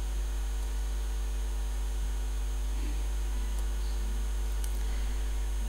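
Steady low electrical mains hum in the lecture recording, with faint room noise and a couple of faint ticks a little after the middle.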